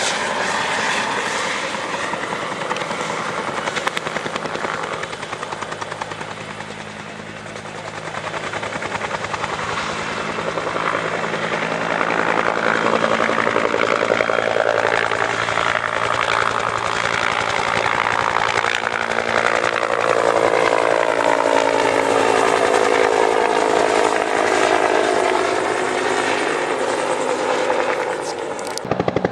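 Firefighting helicopter flying over, its rotor blades beating in a fast steady chop. The sound fades a little about a quarter of the way in, then grows loud again as it passes close, its pitch sweeping down and up.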